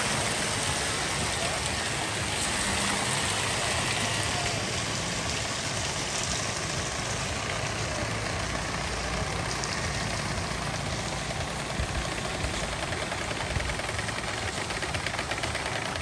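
Steady rush of flowing stream water. A rapid, even knocking grows clearer over the last few seconds.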